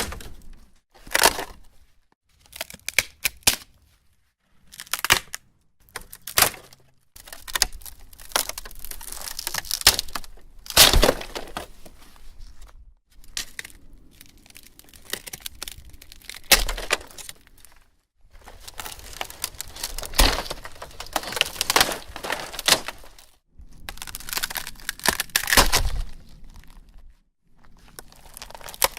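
Old wooden fence panel being broken apart: a string of sharp cracks, snaps and crunching splinters, some single and some drawn out, with short pauses between them.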